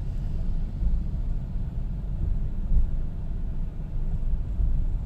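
Low, steady rumble inside a moving car's cabin: engine and road noise as the car creeps along slowly.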